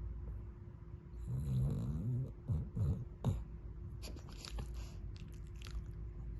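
Light snoring: one longer snore about a second in, then a few quicker ones, followed by faint clicking and rustling.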